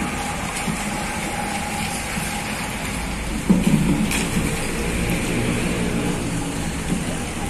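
Diesel engine of a coach bus running as the bus moves slowly past, a steady low rumble over a hiss. About three and a half seconds in it suddenly gets louder, with a pitched tone added for a few seconds.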